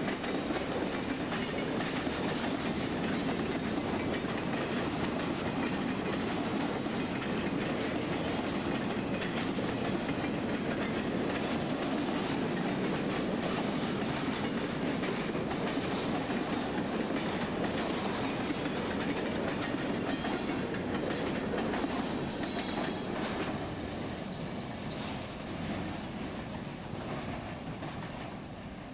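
Freight cars of a passing freight train rolling by close up, steel wheels clacking over the rail joints in a steady rolling din. It fades over the last few seconds as the end of the train moves away.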